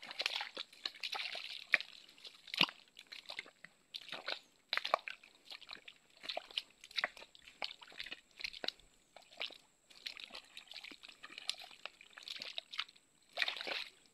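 Footsteps squelching and crackling over wet forest ground, an irregular run of wet crunches and clicks.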